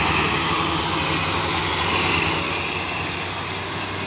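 Diesel engine of a loaded dump truck running as it passes close by, with a steady high-pitched whine over it. The sound eases off slightly near the end.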